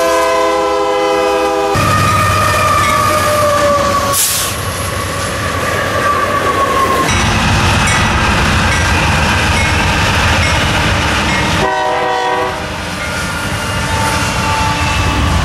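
A string of short cuts of passing diesel freight locomotives: horn chords blowing, one horn dropping steadily in pitch as the locomotive goes by, and the rumble and clatter of a train rolling past. Another short horn blast comes about twelve seconds in.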